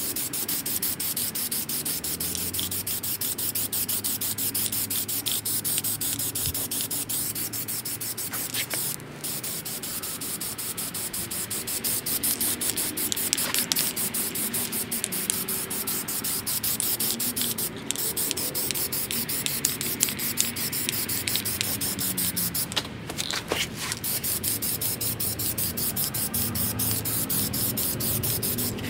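Aerosol spray-paint can hissing in long continuous bursts as brown paint goes onto a steel vise stand, with three short breaks in the spray.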